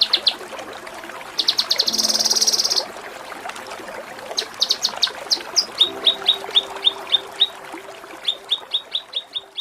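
Kinoi songbird singing a masteran song: fast rattling trills, then a long run of sharp, evenly spaced chirps at about four a second.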